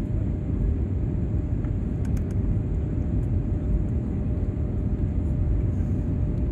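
Steady low rumble of an airliner cabin, engine and airflow noise heard from inside the plane, with a faint steady hum over it.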